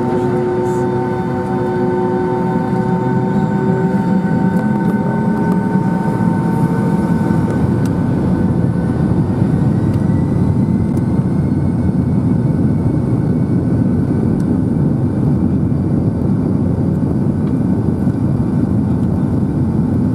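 Boeing 757-200's turbofan engines heard from inside the cabin over the wing: a dense low rumble under steady whining tones. A few seconds in, one whine glides up in pitch and the rumble grows, as the engines spool up with added thrust.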